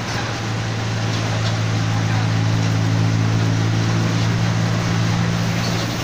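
Mercedes-Benz OF-1722M city bus under way at steady speed, its differential growling as a steady low drone over road noise. The drone swells through the middle and eases off near the end.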